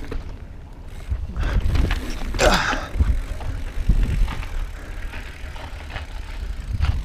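Mountain bike riding down a dirt and rock trail: the tyres roll over ground and rock while wind rumbles on the handlebar-mounted microphone. The noise surges unevenly with the terrain and is louder for a moment about two and a half seconds in.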